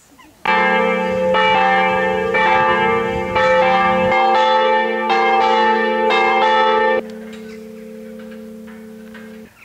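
Church bells ringing: a run of loud strokes about a second apart, stopping suddenly about seven seconds in. A fainter held tone carries on after that and cuts off near the end.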